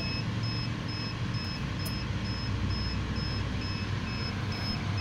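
Steady electronic beeping, about two short high beeps a second, over a low steady hum.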